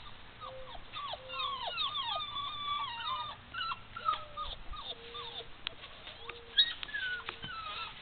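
Puppy whining and whimpering: a run of high, mostly falling whines with a short sharp yip about two-thirds of the way through.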